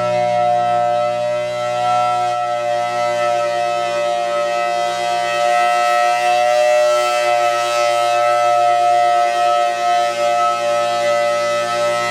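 Federal Signal Thunderbolt 1000T dual-tone siren sounding a steady full alert chord, several tones held at one pitch with a slight wavering in loudness. The siren still sounds a little sick.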